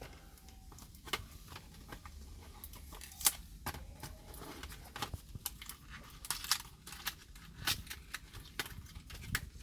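Packaging of an aux cable being opened and handled by hand: a run of irregular sharp clicks and crinkles, the loudest about three seconds in.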